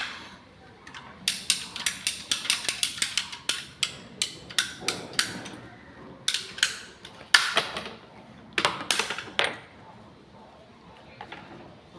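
A rapid, irregular series of sharp knocks and clicks from plumbing tools and fittings being worked, in bursts of several strokes a second for about eight seconds, then stopping.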